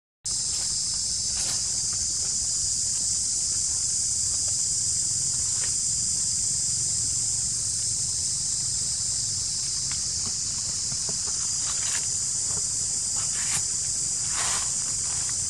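Steady, high-pitched chorus of forest insects that starts abruptly just after the beginning, with a low rumble beneath it. A few brief, faint sounds stand out from it, the clearest about a second before the end.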